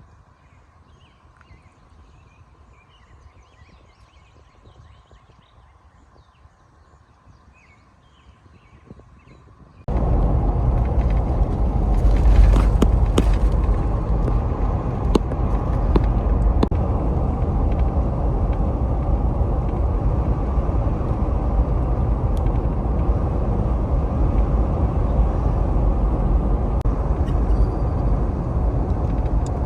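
Faint outdoor background with light chirps, then, about ten seconds in, a loud steady rumble and hiss of a vehicle driving cuts in abruptly, with scattered sharp ticks over it.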